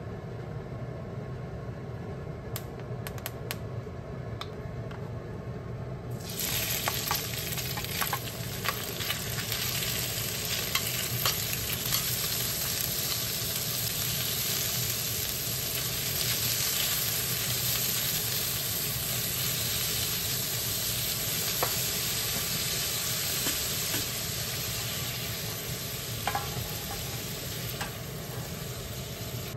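Sliced pork belly frying in oil in a seasoned iron wok. A loud sizzle starts suddenly about six seconds in, as the meat goes into the hot oil, and carries on while it is stirred, with scattered clicks of chopsticks and a spatula against the pan.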